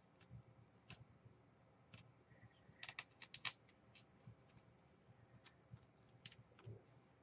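Faint scattered clicks and taps of hands working a small craft tool against lace-covered chipboard, with a quick run of about six clicks around three seconds in.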